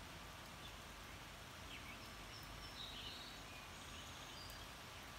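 Faint steady hiss of a light spring shower outdoors, with a few short, high bird chirps in the middle.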